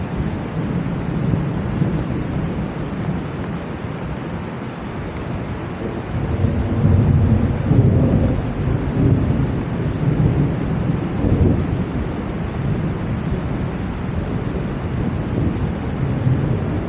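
Heavy rain pouring steadily. A low rumble swells about six seconds in and rolls on for several seconds before easing back.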